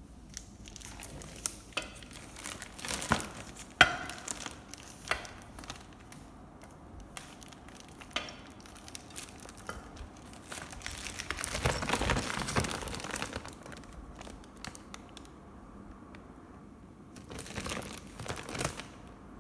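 Clear plastic packaging film around a flat-packed stool being handled and pulled open, crinkling and rustling irregularly. Louder bouts come about three to four seconds in, for a couple of seconds in the middle, and again near the end.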